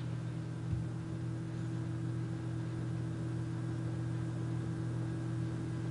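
Dead air with no speech: a steady low electrical hum over faint hiss in the microphone line.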